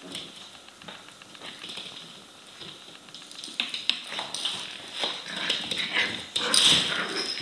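Seven-week-old Soft Coated Wheaten Terrier puppies at play, making short puppy noises. The noises are sparse at first, pick up about halfway through, and are loudest near the end.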